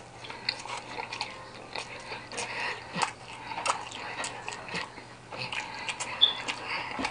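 Close-up chewing of a bite of quesadilla, with irregular lip-smacking and mouth clicks.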